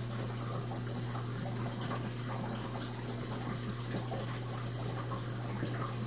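Jenn-Air dishwasher running mid-cycle: the circulation pump motor hums steadily while water sprays and splashes inside the closed tub. The wash sounds normal, without the low recirculation noise that suds had caused.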